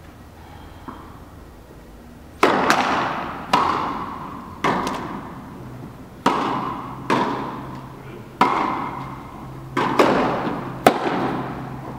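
Tennis ball struck back and forth by racquets in a rally, with bounces on the court, each sharp hit echoing with a long tail in a large indoor tennis hall. About ten hits and bounces, starting a couple of seconds in.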